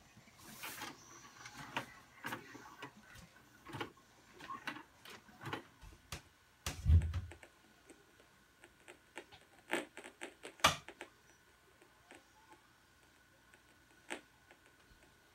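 A VCR's tape mechanism clicking and clunking as Play engages and the tape threads, in irregular sharp clicks with one heavier low thump about seven seconds in; the clicks die away after about eleven seconds.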